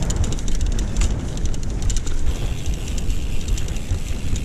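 Mountain bike rolling downhill over a bumpy dirt-and-grass trail: heavy wind rumble on the bike-mounted camera's microphone, with a steady clatter of small rattles and knocks as the bike runs over the ground.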